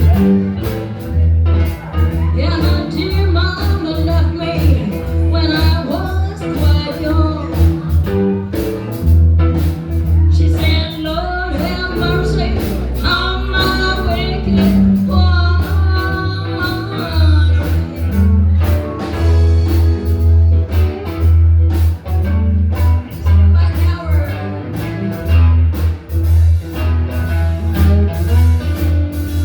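Live blues band playing: a steady bass line and drums under a bending melodic lead line.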